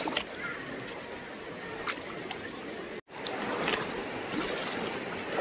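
Steady rush of a shallow river with the splashing of people wading through it, and scattered clicks and knocks. The sound drops out for an instant about three seconds in, then the water noise goes on.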